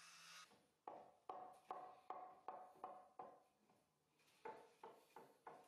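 A run of light knocks, each with a short ring, about two or three a second; they pause around the middle and then resume for a few more.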